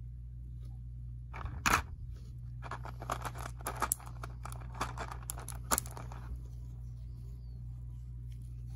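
Clear plastic blister packaging crackling and clicking as a small figure is pried out of its tray, with a sharp snap about a second and a half in and another near six seconds. A steady low hum runs underneath.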